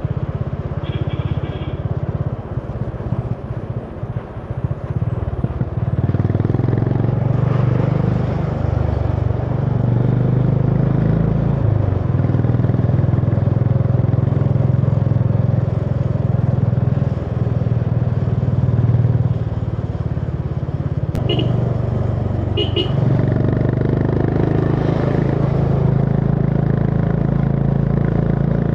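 Honda CB350 H'ness single-cylinder engine running as the bike rides along. The note is softer and uneven for the first several seconds, then steadier and louder from about six seconds in. Two short high beeps sound about three quarters of the way through.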